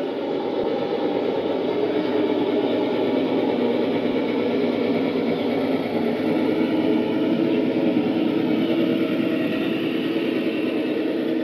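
Traxxas TRX-4 Ford F-150 1:10 RC crawler running steadily at low speed, a continuous mechanical hum with a constant pitch.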